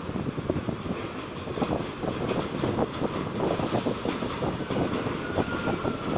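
New York City Subway A train moving through the station, its wheels clacking over rail joints in a rapid, irregular run of clicks over a steady rumble. A faint high tone, sliding slightly down, comes in near the end.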